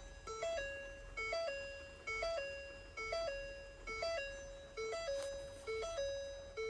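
Music: a short, bell-like tinkling phrase of a few notes that repeats over and over, about once a second.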